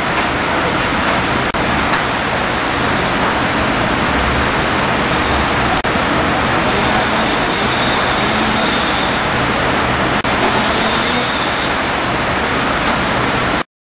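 Fire engines running at a fire scene: a steady engine drone under a loud, even hiss that cuts off suddenly near the end.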